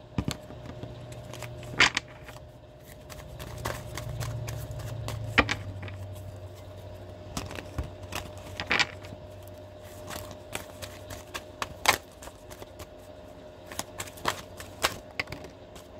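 A deck of tarot cards being shuffled and handled by hand: irregular clicks and snaps of the cards, a few of them sharper.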